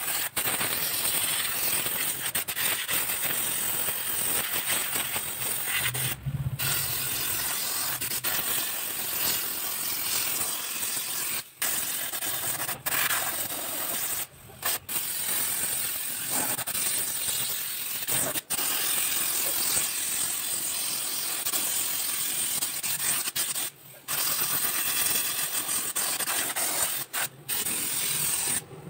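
Compressed-air spray gun hissing steadily as it sprays paint. The hiss stops for short moments several times, where the trigger is let go.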